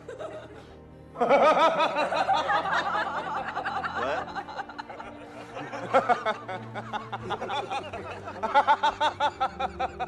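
A man laughing heartily and at length, starting about a second in, over soft background music.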